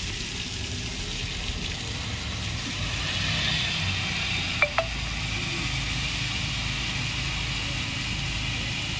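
Fire hose branch nozzle spraying a steady jet of water, a continuous hiss over a low engine hum. Two quick sharp ticks sound about halfway through.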